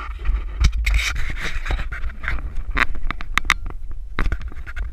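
Close handling noise on a head-mounted action camera: scrapes, rustles and sharp clicks over a low rumble, with a cluster of clicks a little past halfway and another near the end.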